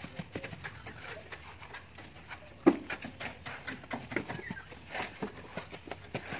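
Irregular clicks, taps and scrapes of cement plastering work: steel trowels working render onto a wall and knocking against mortar buckets and scaffold boards, with one louder knock about a third of the way in.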